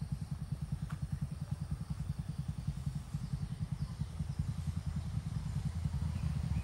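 A vehicle engine idling, with an even, quick low pulse of about ten beats a second.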